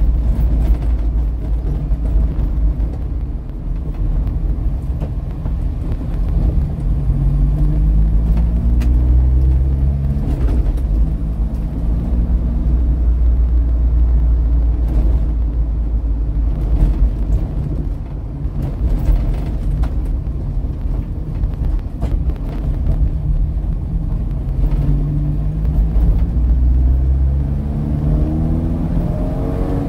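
Chevrolet Chevette's four-cylinder engine running while driving, heard from inside the cabin. The engine pitch climbs as the car accelerates, about a quarter of the way in and again near the end.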